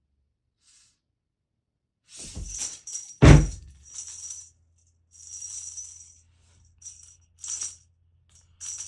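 Irregular rattling, jingling shakes in short bursts, with one heavy thump about three seconds in.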